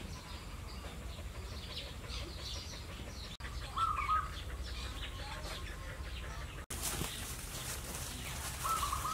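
Outdoor village ambience: small birds chirping again and again, with a short hen cluck about four seconds in and another near the end, over a low steady rumble. The sound breaks off for an instant twice at the edits.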